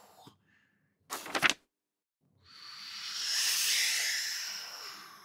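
Cartoon whoosh sound effect of something flung far into the sky. A brief loud burst comes about a second in, then a long airy whoosh swells and fades over about three seconds.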